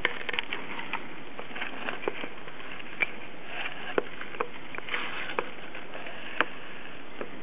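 Steady hiss with a dozen or more light clicks and taps, irregularly spaced, a few of them sharper than the rest.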